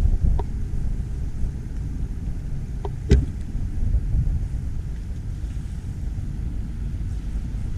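Wind buffeting the microphone: an uneven, gusting low rumble, with one sharp knock about three seconds in.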